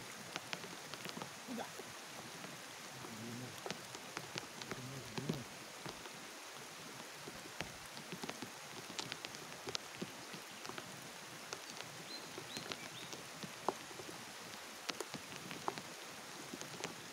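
Rain falling on the surface of a river pool: a steady hiss dotted with the sharp ticks of single drops.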